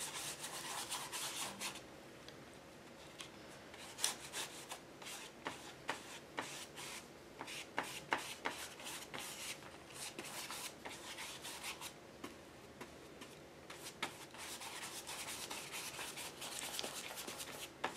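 A paintbrush rubbing a thin watered-down paint wash across a textured paper journal page: faint brushing strokes, with scattered small clicks and taps through the middle.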